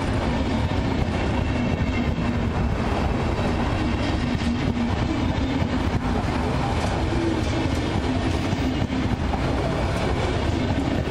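Red DB Regio n-Wagen passenger coaches rolling along the platform, a steady rumble of wheels on rails with a faint hum.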